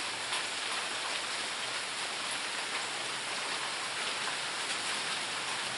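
Steady rain falling, an even hiss with no change.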